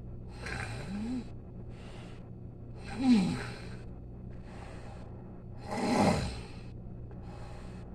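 Snoring: slow, rhythmic sleeping breaths, with a louder snore roughly every three seconds carrying a low rumbling tone that slides in pitch, and softer breaths in between.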